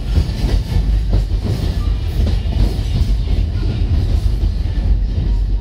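Alishan Forest Railway narrow-gauge train running, heard from inside a passenger carriage: a steady low rumble of wheels on track with irregular rattles.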